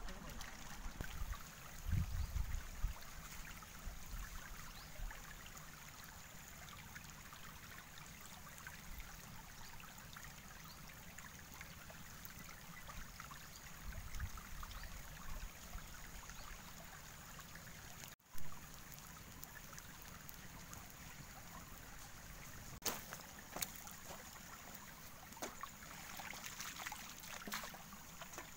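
Shallow stream water trickling steadily over rocks, with a few low rumbling thumps and scattered sharp clicks.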